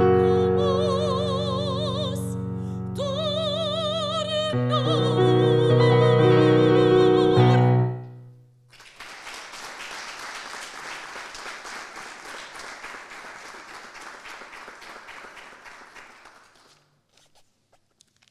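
A woman sings the last phrase of a song in operatic style, with a wide vibrato, over sustained piano chords. The phrase ends on a long held note about eight seconds in. A small audience then claps for about eight seconds, and the applause dies away near the end.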